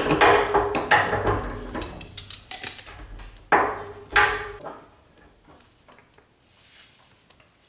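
Metal clanks and scrapes of water-pump grips and an adjustable spanner on an old brass lockshield radiator valve as its 15 mm compression nut is loosened and the valve is worked off the pipe. There are a few sharp knocks in the first four seconds, then only quiet handling.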